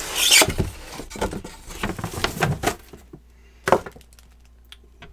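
Cardboard box and plastic packaging rustling and scraping as a small airbrush compressor is pulled out of its box, with scattered handling knocks and one sharp knock a little over halfway through.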